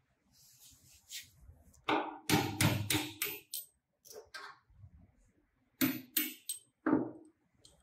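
Steel hammer knocking tight bolts up and out through a wooden sewing machine table top: a quick run of sharp, ringing blows about two seconds in and another run about six seconds in.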